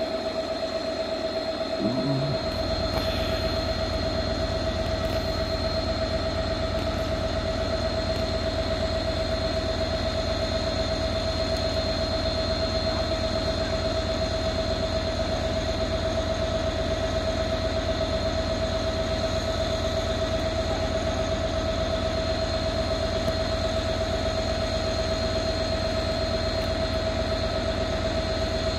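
Diesel freight locomotive idling at the head of a container train: a steady drone with a strong held whine, its deep rumble growing heavier about two seconds in and then holding steady.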